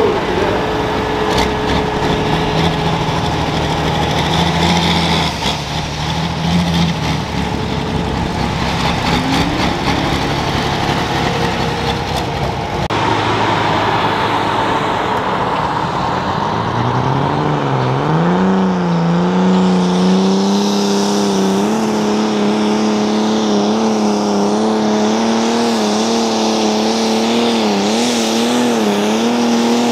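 Pulling-tractor engines running at full power. First a John Deere 4450 runs at a steady pitch. After an abrupt change about 13 seconds in, an Oliver 1855 super stock pulling tractor's engine revs up over a couple of seconds and then holds high, its pitch wavering as it pulls the sled.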